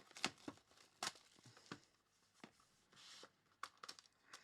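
Football trading-card hobby box and its pack being opened by hand: quiet tearing and crinkling of cardboard and wrapper, with a string of small sharp clicks and rustles.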